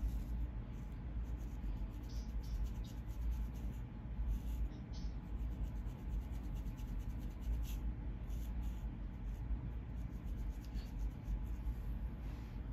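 A thin comb scratching along a flaky, dandruff-covered scalp in many quick, short strokes, lifting the flakes, with a steady low hum underneath.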